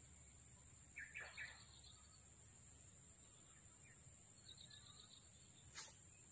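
Faint rural ambience: a steady high insect drone, with short bird chirps about a second in and again about four and a half seconds in, and one sharp click near the end.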